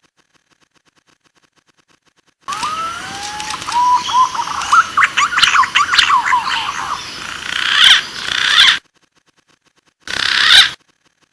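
Green pigeon (punai) calling: a loud run of wandering, gliding whistles and quick trills that starts abruptly after a silent gap and cuts off suddenly about six seconds later, followed by one short burst near the end.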